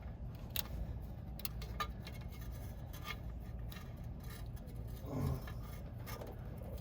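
Irregular small metallic clicks and clinks of hand tools and wiring being handled while a bus starter is being wired, over a low steady background rumble.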